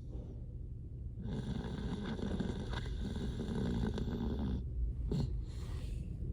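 Dalmatian snoring in its sleep: one long snore starting about a second in and lasting some three seconds, then a short, sharper sound about five seconds in.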